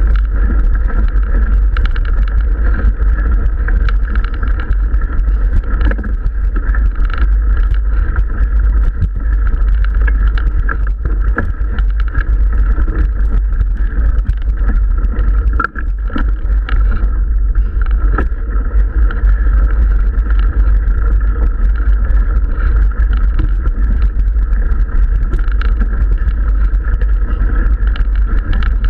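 Mountain bike climbing a gravel track, heard through the riding camera's microphone: a loud, steady low rumble of wind and vibration, with small clicks of the tyres on gravel.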